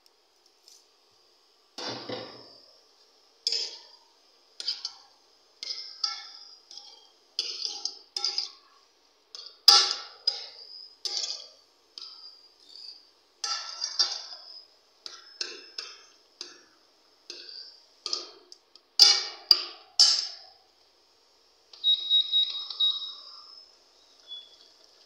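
Steel ladle scraping and clinking against the inside of a stainless steel pressure cooker while stirring grated carrot, in short irregular strokes about once a second, with a few louder clanks in the middle and near the end.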